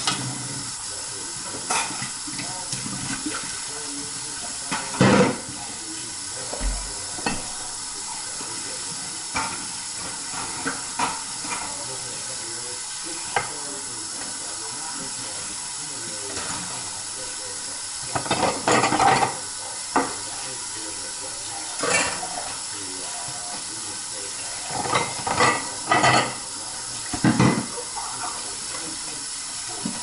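Kitchen tap running steadily into a sink during hand dishwashing, with sharp clinks and clatters of dishes and utensils knocking together now and then, most of them in the second half.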